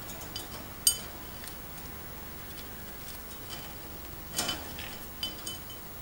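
A budgerigar pecking at cucumber slices on a plate: sharp clinks of its beak against the plate, the loudest about a second in and a few more close together in the second half.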